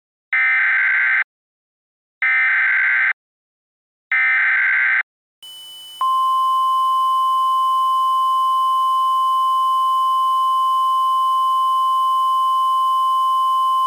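Emergency Alert System (SAME) header: three identical short bursts of digital data screech, each under a second and about a second apart. Then, after a brief hiss, the NOAA Weather Radio 1050 Hz warning alarm tone, one steady pure tone held for about eight seconds, signalling that an emergency message is about to be broadcast.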